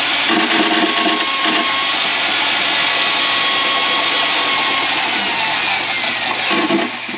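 Electric drain-cleaning machine (power drain snake) running steadily, working the cable through a grease clog in a kitchen drain line, and shutting off at the very end.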